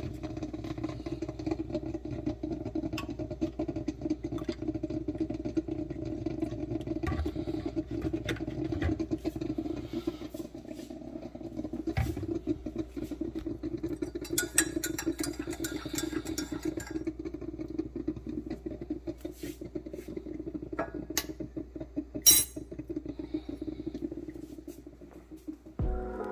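A steady mechanical hum with scattered clicks and knocks, and one louder click about 22 seconds in.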